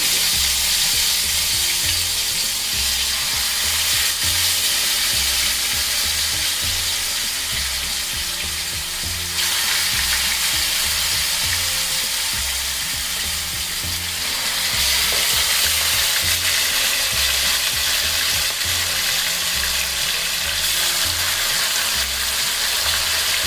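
Yogurt-marinated chicken pieces sizzling steadily as they fry in hot sunflower oil in a pan.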